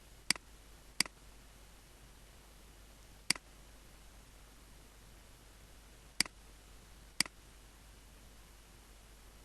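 Five sharp, single clicks of buttons being pressed on a satellite receiver's remote control, spaced irregularly, over a faint steady hiss.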